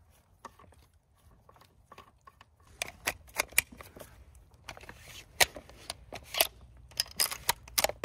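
A 6mm Creedmoor bolt-action rifle being handled. A few faint clicks come first, then from about three seconds in a run of sharp, irregular metal clicks and snaps.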